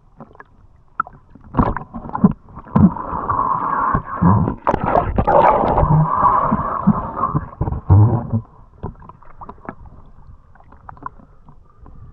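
Shallow sea water sloshing and gurgling around a camera held at the waterline, with irregular knocks and clicks from the camera and speargun being handled. The sloshing is heaviest through the middle and dies down to faint scattered clicks near the end.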